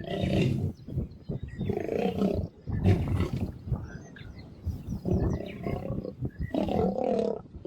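A badly injured lion, its spine broken, roaring in a series of calls of about half a second to a second each, with short gaps between them. It is in great pain.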